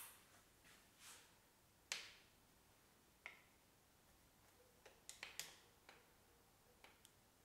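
Near silence: quiet kitchen room tone with a few faint, sharp clicks and ticks. One has a brief ring, and a quick cluster comes about five seconds in.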